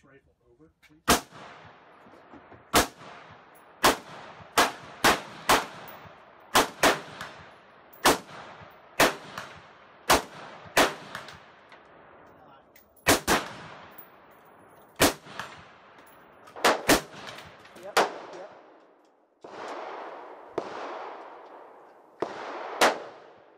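Semi-automatic AR-style rifle fire: about twenty sharp shots at uneven spacing, some in quick pairs and triplets, each trailing off in an echo.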